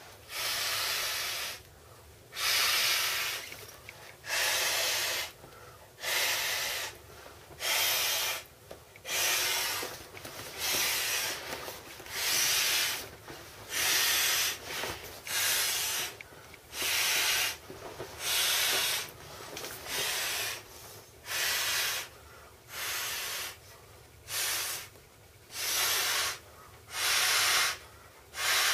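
Inflatable swim-ring tube being blown up by mouth. Long breathy puffs are blown into its valve at a steady rhythm, about one every second and a half, with short quieter gaps as breath is drawn in between.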